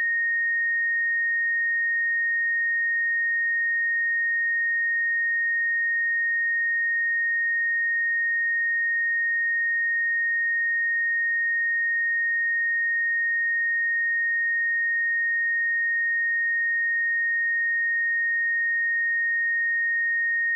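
A pure 1857 Hz sine-wave test tone, held steady at one pitch and level throughout.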